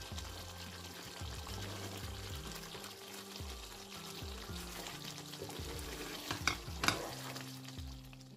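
Thick coconut chicken curry sizzling in a nonstick frying pan as a wooden spatula stirs it, with two sharp knocks of the spatula against the pan close together near the end. Quiet background music runs underneath.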